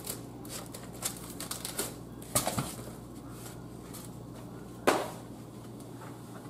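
Plastic wrap crinkling and tearing off a tray of ground beef, then a knock as the block of partly frozen ground beef drops into the hot frying pan about two and a half seconds in, where it sizzles. A second sharp knock comes near the five-second mark.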